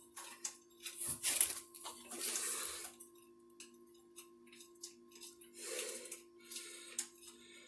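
Hand tools clicking and scraping on metal as a loosened nut is worked off a mini bike's frame, with two longer scraping stretches early on the way and irregular small clicks. A faint steady hum runs underneath.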